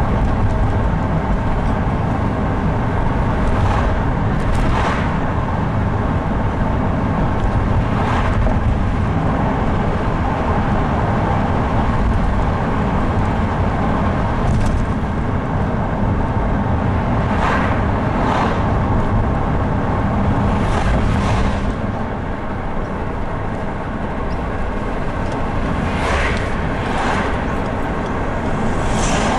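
Car driving along, heard from inside: a steady rumble of engine and tyre noise on the road, with a dozen or so short knocks scattered through it. The rumble eases a little about three quarters of the way through.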